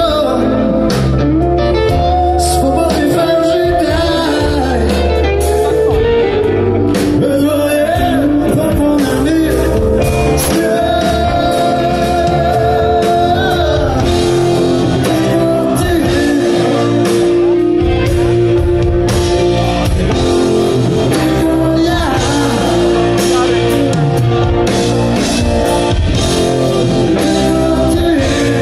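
Live rock band playing, with electric guitars, bass and drums under a lead singer's vocal line, heard through the amplified stage sound from the audience.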